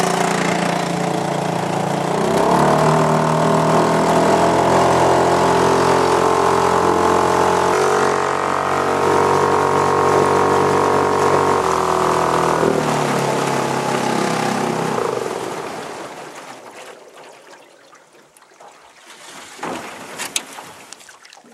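Small outboard motor on a canoe running steadily under way, its note shifting in pitch a few times, then dying away about fifteen seconds in. A few faint knocks follow near the end.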